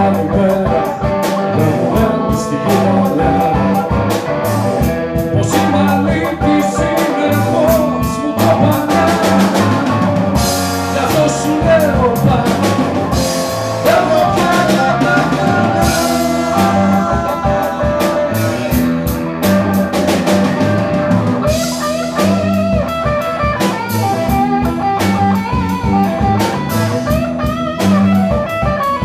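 Live blues-rock band playing: a man singing over electric guitar, keyboard, bass guitar and a drum kit keeping a steady beat.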